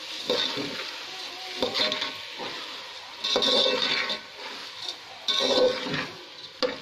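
Steel spoon stirring and scraping rice against a metal pot, the rice frying in oil over a steady sizzle. About five scraping strokes come every second or two: rice being fried with browned onions and whole spices before the water goes in.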